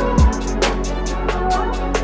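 Electronic hip hop backing music with a deep bass drum, quick hi-hat ticks and sustained bass.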